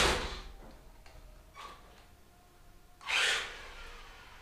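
Electric motor and gears of a GPT S911 Foxx remote-control monster truck whirring in short bursts of throttle as it drives across the floor: one burst at the start fading out within half a second, a faint one in between, and another about three seconds in.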